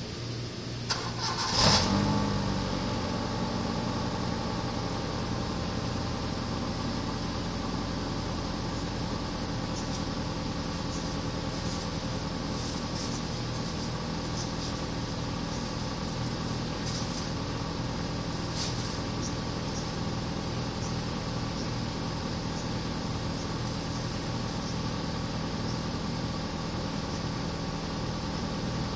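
Stock Honda Civic VTi's D16Y8 1.6-litre SOHC VTEC four-cylinder engine starting about a second and a half in, with a brief flare in revs, then idling steadily.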